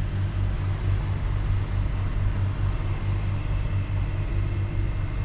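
Catamaran's twin 57 hp Yanmar diesel engines running steadily under way, a low pulsing drone.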